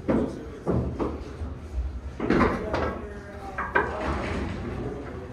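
Pool balls clacking against each other and the rack as a 9-ball rack is set up on the table: several sharp knocks, the loudest about halfway through.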